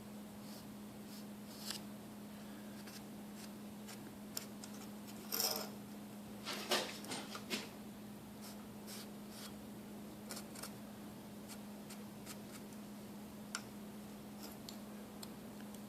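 Marker scratching and scraping as the original draw-latch catch is traced onto a new piece, with scattered light clicks of small parts being handled. The strokes are louder around five to seven and a half seconds in, over a steady low hum.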